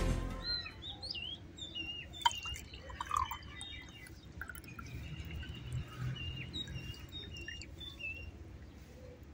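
Liquid trickling and dripping as it is poured from one glass into another, with a sharp click about two seconds in. Small birds chirp over it throughout.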